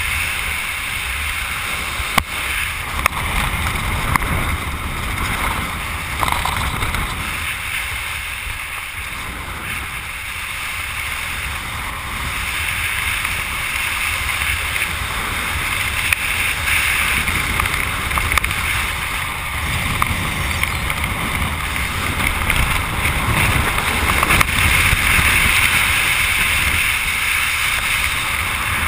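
Steady wind rushing over the camera's microphone during a descent under an open parachute canopy, with a low rumble and a few brief knocks.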